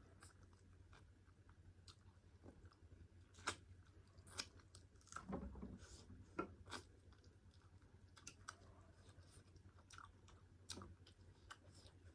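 Faint close-up chewing of a mouthful of pork curry and rice, with scattered wet mouth clicks and smacks, busiest in the middle.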